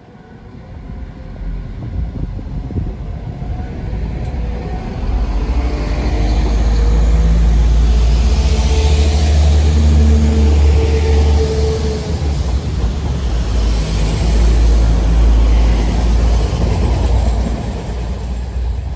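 Class 172 Turbostar diesel multiple unit passing close by along a station platform: its underfloor diesel engines run with a steady low note over wheel-on-rail noise and rushing air. The sound swells as the cars come alongside and eases off as the train draws away.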